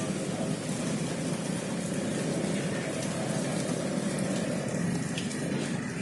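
Steady rush of running water flowing across a wet concrete rooftop.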